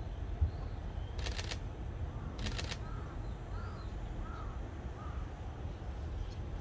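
Birds calling: two short harsh calls about a second apart, then a string of short chirps, over a steady low rumble.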